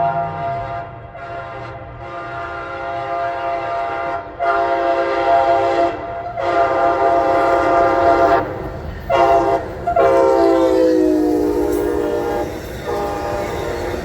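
Amtrak passenger locomotive's multi-chime air horn sounding a string of long blasts with short breaks, a loud chord of several notes. About eleven seconds in, the horn's pitch drops as the locomotive passes, then the horn stops and the train runs on with a rumble.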